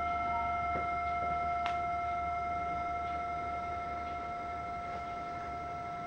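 Brass singing bowl ringing on after being struck, a steady low tone with higher overtones slowly fading away. A faint tap about a second and a half in.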